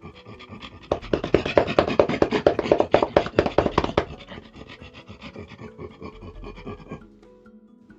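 A man's voice doing an animal impression: a fast run of short rhythmic pulses, about seven a second, loudest in the first few seconds and then fading until it stops about seven seconds in.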